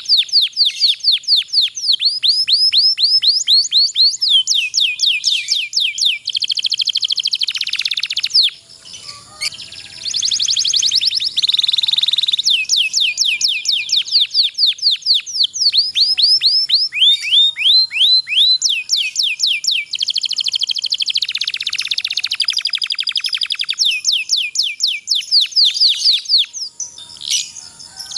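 Domestic canary singing long rolling trills: fast runs of high repeated chirps, one phrase after another at changing speeds, with a brief softer break about eight seconds in.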